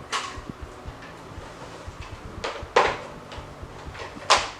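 Several sharp plastic clicks and knocks, about four, as a power plug is handled and pushed into a 16 amp wall socket.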